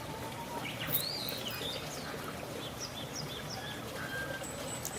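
Birds chirping and calling over a steady outdoor hiss: curving whistled calls about a second in, then a quick run of short chirps. A short click sounds about a second in.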